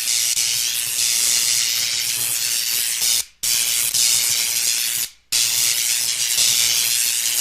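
Electricity sound effect: a loud, steady electric crackling hiss over a low hum, like arcing current, cutting out briefly twice, about three and five seconds in.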